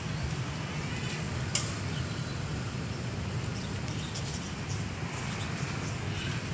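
Outdoor background noise: a steady low rumble, with a few faint high chirps and a sharp click about a second and a half in.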